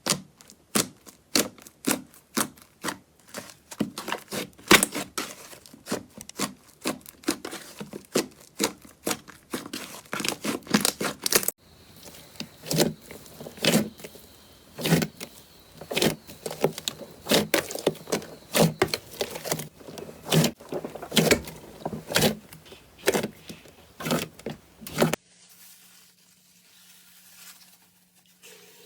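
Slime being pressed and stretched by hand, giving a quick run of sharp crackling pops. Near the end the popping stops, leaving a faint low hum.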